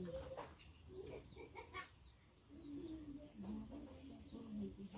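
Hens clucking softly in short low calls through the second half, with a few light clinks of steel utensils in the first two seconds.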